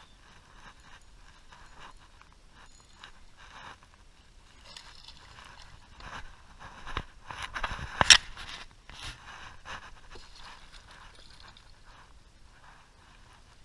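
Spinning reel being cranked and rod and line handled while a hooked bass is fought to the boat, with splashing at the surface. The loudest moment is a sharp hit about eight seconds in.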